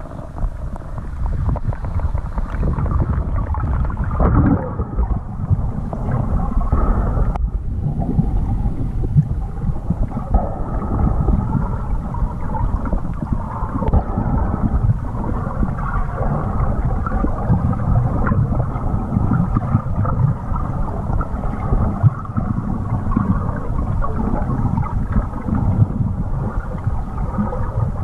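Water rushing past a submerged camera as a snorkeller swims: a steady, muffled rumbling, with a short drop-out about seven and a half seconds in.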